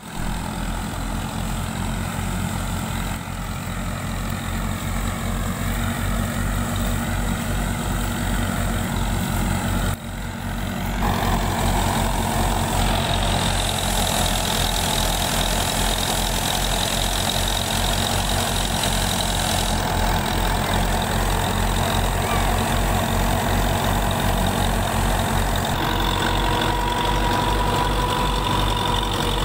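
Belarus 510 tractor's four-cylinder diesel engine running steadily at a constant speed with an even low beat, driving a wheat thresher. About 13 seconds in, a steady higher whine rises above the engine.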